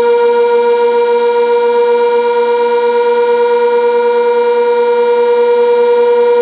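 Sentry 16V1T-B outdoor warning siren sounding a loud, steady single tone, the short alert signal of its monthly test, with no rise or fall in pitch.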